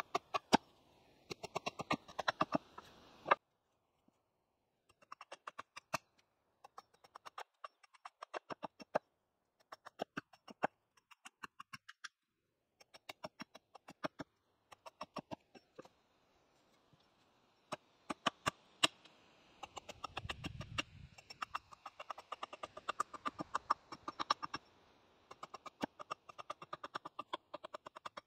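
Small hatchet hewing a thin wooden pole on a chopping block: runs of quick, light chopping strokes with short pauses between them, as the pole is shaved down to a lath.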